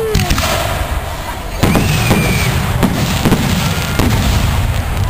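Aerial firework shells bursting overhead: four sharp bangs, the first and loudest a little over a second and a half in, then three more about half a second to a second apart.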